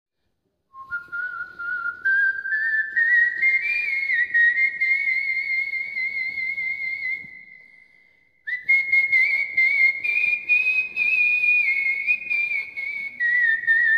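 A man whistling a flute-like melody with his mouth, the pitch wavering and climbing step by step. The tune fades out about seven seconds in and starts again about a second later, stepping down a little near the end.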